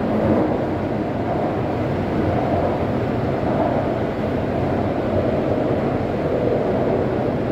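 Steady running rumble inside a Taipei Metro C371 train car moving between stations: wheel-and-rail and undercarriage noise with no separate clicks, announcements or tones.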